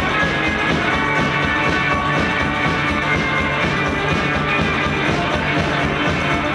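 Live rock band playing loudly, with electric guitar prominent, as a dense, steady wall of sound.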